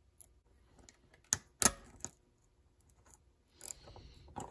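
Small bicycle derailleur parts handled by hand: a few sharp clicks and taps as a pulley and its bolt are fitted into the derailleur cage, the loudest about a second and a half in, with soft handling rustle near the end.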